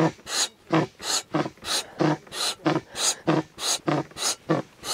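Air pump inflating a Soviet rubber inflatable boat from 1987, worked in an even rhythm of about three strokes a second, each stroke a short puff of rushing air. The boat is being topped up because it slowly loses air.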